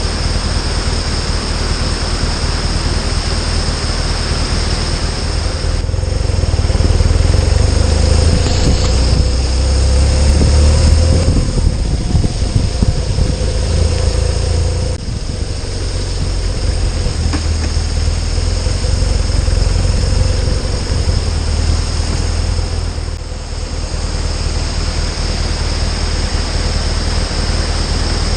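Motorcycle engine running under way with a loud rush of wind and road noise. It grows louder for a few seconds and eases off briefly several times, as the throttle rolls on and off.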